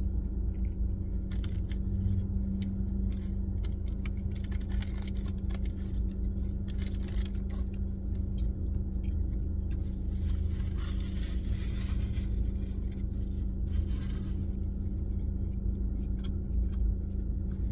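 Steady low hum of a car cabin with the engine idling, under scattered small clicks and smacks of chewing. A rustle runs for about two seconds starting about ten seconds in, with a shorter one a couple of seconds later.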